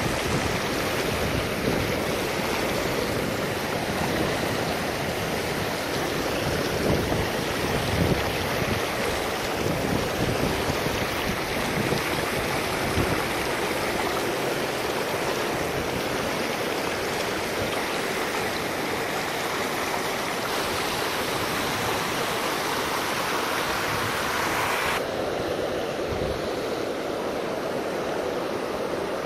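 Steady rush of river water flowing through rippling shallows, with gusts of wind buffeting the microphone in the first half. About 25 s in the sound abruptly turns duller.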